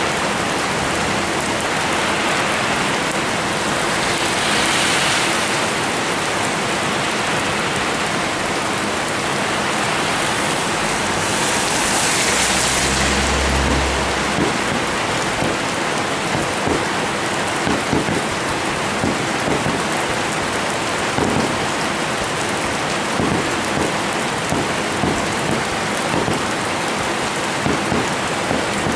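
Fireworks display: a steady crackling hiss, with a low boom about twelve seconds in and many sharp pops through the second half.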